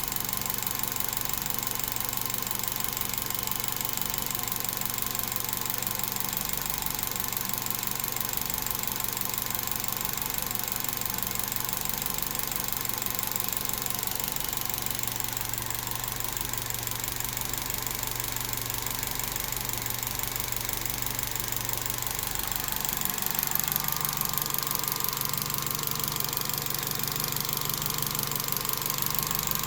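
LPG gas injectors on a Daewoo Matiz ticking rapidly and steadily over the idling engine. A little over two-thirds of the way through, the engine speed rises slightly and the whole sound gets a little louder.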